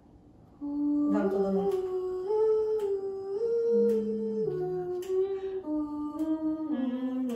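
Voices humming a slow melody in close harmony, with long held notes stepping up and down in pitch, starting about half a second in.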